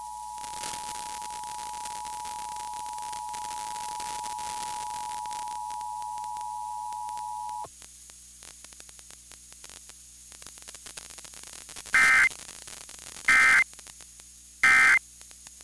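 Emergency Alert System two-tone attention signal over radio static for about the first eight seconds, cutting off abruptly. After a few seconds of hiss come three short, loud digital data bursts about a second and a half apart, the EAS end-of-message code closing a required monthly test with no spoken message.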